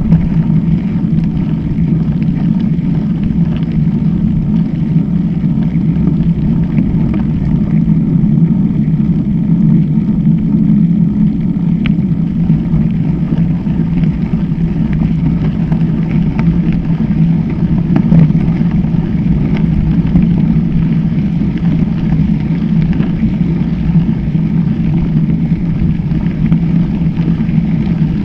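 Steady, loud riding noise from a camera mounted on a mountain bike's handlebars rolling over a gravel track: a low rumble of tyre and frame vibration mixed with wind buffeting on the microphone, with a few faint knocks from the bumps.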